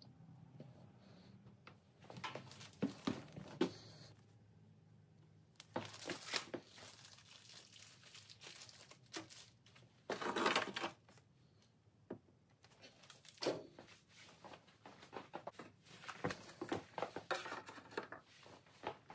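Irregular clicks, knocks and rustling of hands working with tools and small parts, with a longer scraping rustle about ten seconds in.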